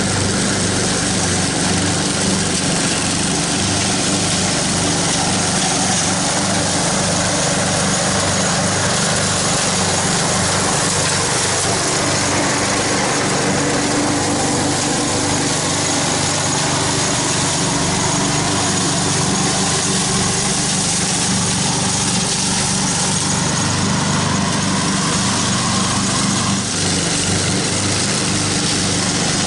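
Craftsman riding lawn mower running steadily with its blades engaged, chopping and mulching a thick layer of dry fallen leaves: a constant engine drone under a hissing shred of leaves.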